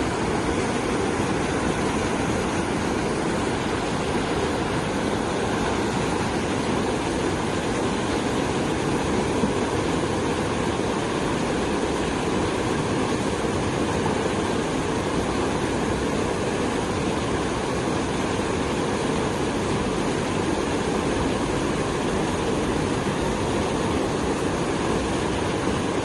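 Fast, muddy river water rushing down a narrow walled channel: a steady, unbroken rushing roar of turbulent flow.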